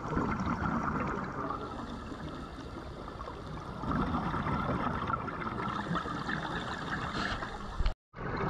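Muffled underwater noise picked up by a diver's camera: a steady rushing and gurgling of water that swells louder at times, broken by a brief dropout about eight seconds in.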